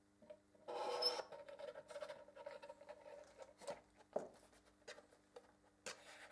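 Gloved hands handling a cheeseburger and a paper drink cup with a plastic straw, making rustling, rubbing and light clicking sounds, loudest in a brief scrape about a second in. A faint steady hum runs underneath.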